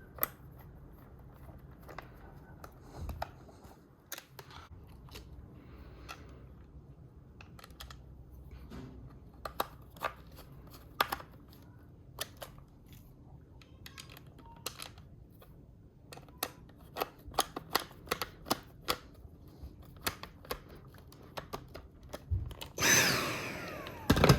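Scattered light clicks and taps of a screwdriver and plastic parts as the battery is seated and its screws are driven back into a Dyson V8 stick vacuum. Near the end comes a short loud burst with a whine that falls steeply in pitch.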